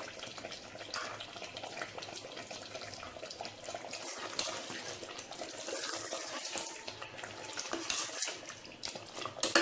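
Mutton korma gravy simmering and bubbling in a steel pot, a steady crackly bubbling with small pops, while a ladle stirs it; a sharp clink of the ladle against the pot near the end.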